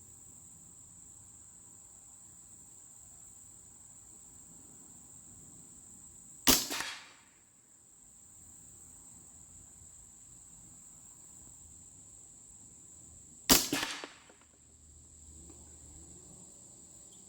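Two shots from a Hatsan Blitz .30 caliber PCP air rifle firing JSB 50 grain pellets, about seven seconds apart, each a sharp crack with a brief tail. A steady high-pitched insect drone runs underneath.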